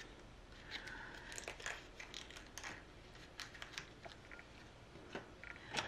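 Faint handling sounds of small craft-supply packaging: light clicks and rustles of paper, card and plastic being moved, with a short squeak about a second in.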